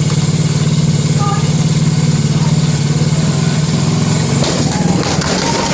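Small quad bike engine idling steadily with a fast, even pulse. About four and a half seconds in, the steady note breaks up and turns rougher.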